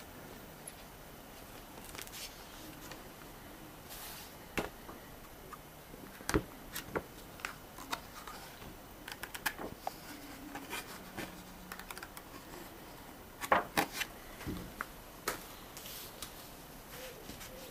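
Handling of a softcover role-playing book and its loose paper inserts and fold-out map: irregular light paper rustles and sharp taps and clicks, with a quick run of louder clicks about three-quarters of the way through.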